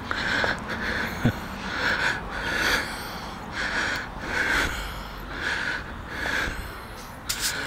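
A person breathing hard close to the microphone while walking, short noisy breaths following one another about every half second, with a couple of sharp clicks near the end.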